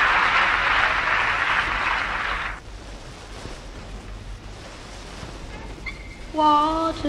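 Audience applause on a transfer of an old live vinyl record, stopping suddenly about two and a half seconds in to leave the record's steady surface hiss. Near the end the next song begins with a held note.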